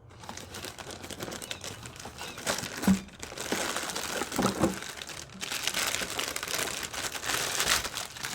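Packaging crinkling and rustling as the soldering station's box is unpacked, with a sharp knock about three seconds in and denser rustling through the second half.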